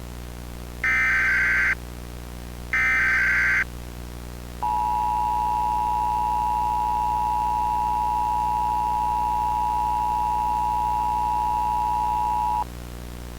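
Emergency Alert System tones: two SAME header data bursts, each about a second long, then the EAS attention signal, two steady tones sounding together, held for about eight seconds before cutting off.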